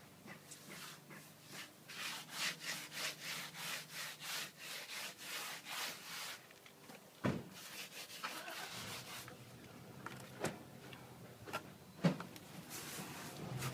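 Rhythmic rubbing or scraping strokes, about three a second for several seconds, followed by a few separate sharp knocks.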